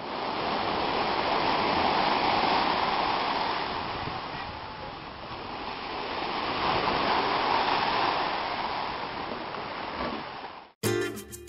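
Small waves washing onto a sandy beach, a steady rush of surf that swells and fades twice. It cuts off suddenly near the end, where acoustic guitar music begins.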